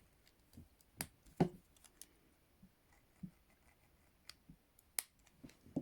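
ASP Model 200 hinged handcuffs being closed on the wrists and double-locked: a few sharp metal clicks, one about a second in, another just after it, and one more near the end, with faint ticks between.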